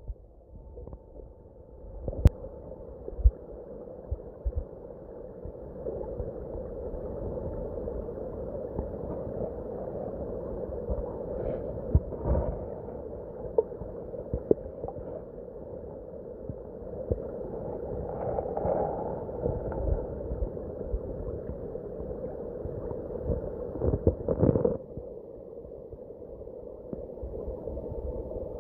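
Creek water rushing over a rock bed, heard muffled through a submerged camera: a steady low gurgling rush with occasional dull knocks, several close together near the end.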